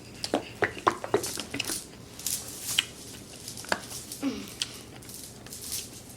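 Close-miked eating and food-handling sounds: a string of short, irregular wet squishes and clicks, with a couple of brief squelches in the middle.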